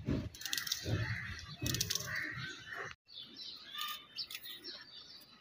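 Small birds chirping, with soft crisp clicks of a small knife slicing a raw onion held in the hand. The sound drops out briefly about three seconds in.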